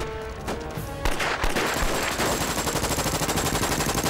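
Battle gunfire: a few separate shots, then from about one and a half seconds in a long, rapid, continuous machine-gun burst.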